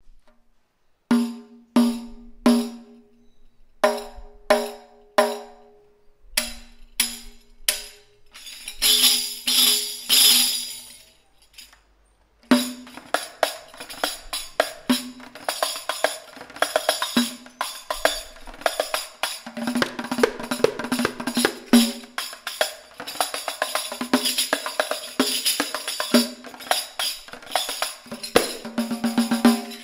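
A fish-skin riq, a frame drum with hammered cymbal jingles, played: single strokes on the head, each with a low drum tone and a jingle ring, then the jingles shaken in a sustained shimmer. After a short pause about twelve seconds in, a fast continuous rhythm of head strokes and jingles.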